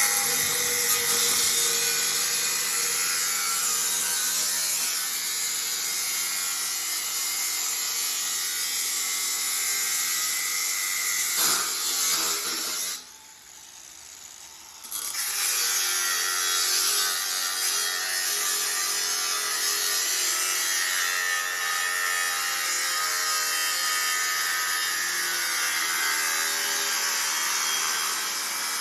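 Angle grinder with a cutting disc slicing through a metal Z bar: a loud, steady, hissy grind. About 13 seconds in the cut breaks off for roughly two seconds, then the grinding resumes.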